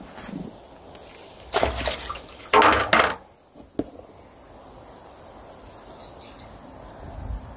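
Water splashing in two short bursts about a second apart from a landing net holding a caught crucian carp, followed by a single light click.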